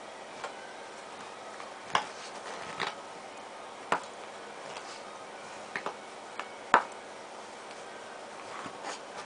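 A small dog pawing and mouthing a large toy ball: irregular sharp taps and clicks, about nine in all, the loudest about two-thirds of the way through.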